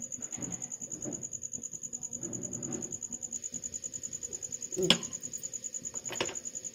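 Aluminium idli plates knocking together as they are handled and stacked: two sharp metallic clinks, the loudest about five seconds in and a lighter one a second later. Under it runs a steady high-pitched whine.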